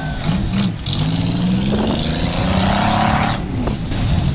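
Demolition derby car engines revving hard, their pitch rising and falling. A loud hiss joins about a second in and cuts off suddenly near the end.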